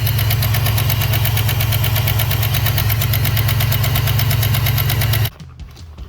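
2011 GMC Sierra gas engine idling with a rapid, even ticking from the valvetrain, the sign of a collapsed lifter. The engine sound cuts off suddenly about five seconds in.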